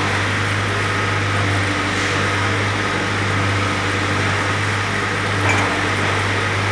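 Steady low machinery hum with an even haze of fan or air-conditioning noise: workshop ambience.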